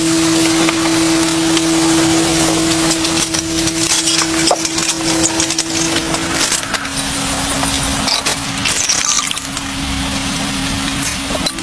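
Heavy rain falling in a dense, crackling patter, with a steady low hum underneath that drops in pitch about halfway through.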